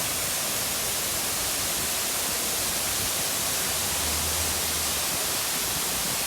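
Steady rush of falling water from a man-made waterfall, an even hiss strongest in the high range.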